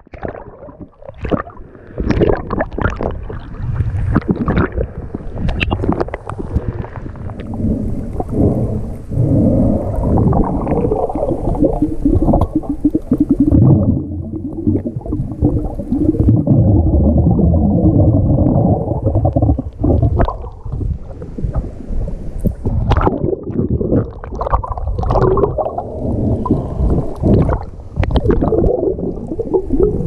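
Sea water moving around a submerged camera: a muffled sloshing rumble with many scattered clicks and knocks, and a faint steady hum through the middle.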